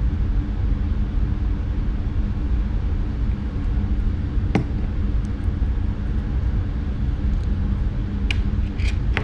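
Steady low rumble with a constant hum, with a single light click about halfway through and a few sharper clicks near the end as small metal motor parts are handled.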